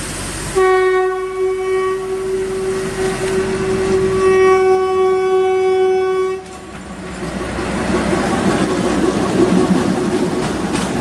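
ZDM narrow-gauge diesel locomotive sounding one long steady horn blast of about six seconds as it pulls in. After the blast cuts off, the train's engine and wheels clatter past close by, growing louder.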